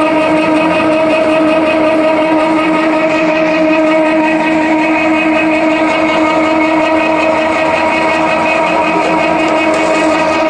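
Charcoal briquette extruder running with a steady, unchanging whine and hum.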